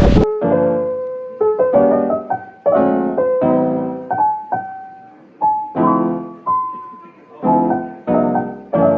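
Solo piano music: single notes and chords struck one after another and left to ring away. Wind rumbling on the microphone cuts off suddenly just as it begins.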